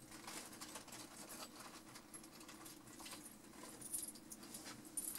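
Faint rustling and small clicks of small objects being handled, with a couple of brighter jingly ticks near the end.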